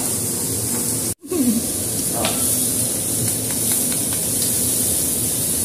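Pork belly slices and noodles sizzling on an electric griddle, a steady frying hiss, with a few light clicks of metal tongs. The sound cuts out for an instant about a second in.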